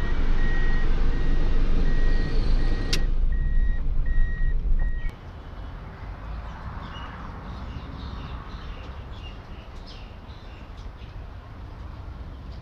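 Heavy vehicle engine rumble with a reversing alarm beeping about twice a second. About five seconds in it cuts off suddenly, leaving a quieter, steady hiss of rain.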